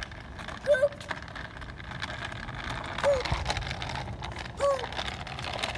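Kick scooter's small wheels rolling on a concrete sidewalk: a steady low rumble with occasional light clicks. Three short, high squeaks stand out, about a second in, at three seconds and near the end.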